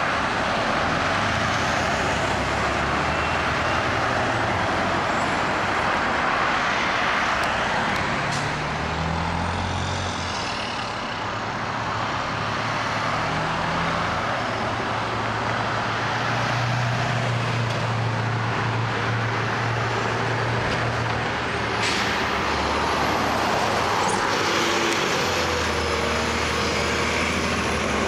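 Diesel engines of front-loading garbage trucks running and pulling away, the engine note rising and falling as they accelerate past, over steady road traffic noise. A brief air-brake hiss is heard late on.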